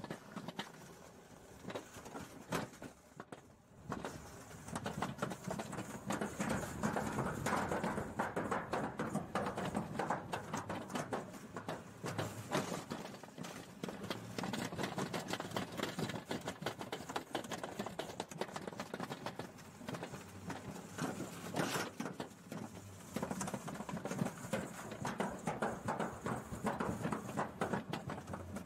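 Mini rail coaster cart clattering along its track: a dense, continuous run of rapid clicks and rattles, quieter at first and louder from a few seconds in.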